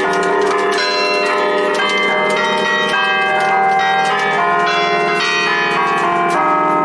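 Church bells of a six-bell De Poli peal in B-flat, cast in 1910, rung festively: the fixed bells are struck in quick succession on different pitches from a wooden lever keyboard chained to their clappers, the strikes overlapping over a steady ringing hum.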